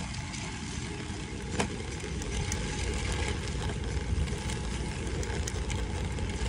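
Gravel bike rolling over wet dirt and gravel, its tyre noise mixed with wind rumbling on the microphone. There is one sharp click about a second and a half in.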